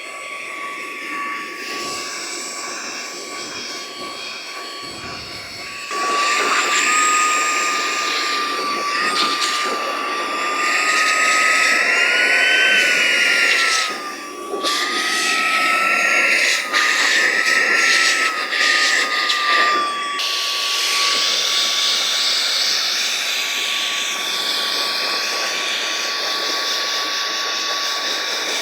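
Cordless electric air duster's high-speed brushless motor blowing, a high-pitched whine over rushing air. About six seconds in it gets louder and its pitch wavers up and down, with a brief dip in the middle, then it settles back to a steady whine for the last several seconds.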